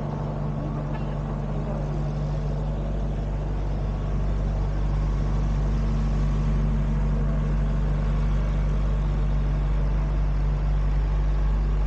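Steady low engine hum, growing slightly louder about four seconds in.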